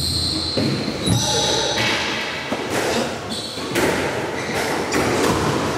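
Squash ball being struck by rackets and smacking off the court walls in a rally, sharp hits echoing around the enclosed court, with voices over it.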